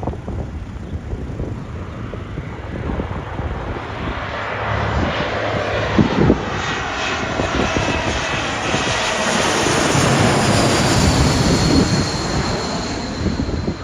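A fixed-wing airliner passes the microphone, its engine noise building to a peak about ten seconds in and then easing. As it goes by, a high whine falls slowly in pitch.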